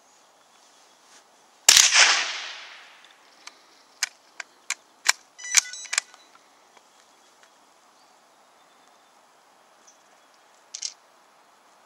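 A .22 bolt-action rifle fires one shot, its report echoing away over about a second. A couple of seconds later come several sharp metallic clicks and a brief clatter as the bolt is worked to chamber the next round, with one more click near the end.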